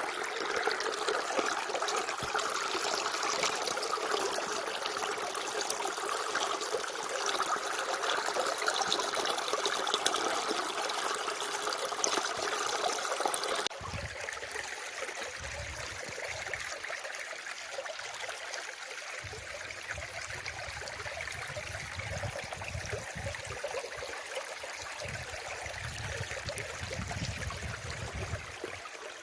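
Running water trickling and splashing steadily. About 14 s in the sound cuts abruptly to a quieter, duller flow with intermittent low rumbles.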